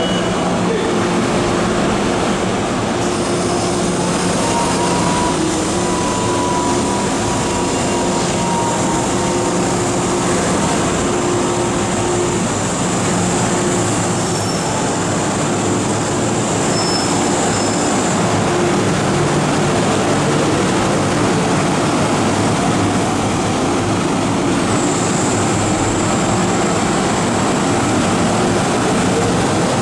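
MTR M-Train electric multiple unit running through the station platform without stopping: a loud, steady rumble of wheels and running gear with a low steady hum of motor tones. A thin high tone rides over it for much of the first half and again near the end.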